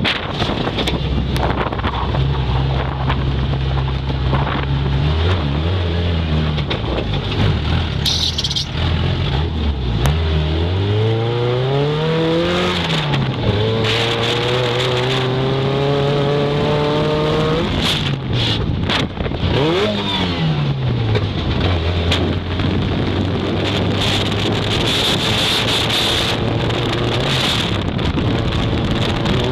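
Off-road race car's engine heard from inside the open, caged cab, running hard over a rough dirt track. The revs climb steeply about ten seconds in and drop away, then fall and rise again around twenty seconds, under steady wind and road noise with scattered knocks.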